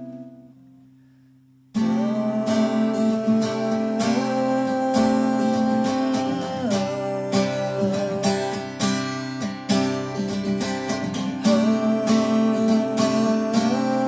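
Acoustic guitar being strummed. The sound fades almost away at first, then about two seconds in the strumming starts abruptly and carries on steadily, the chord changing every few seconds.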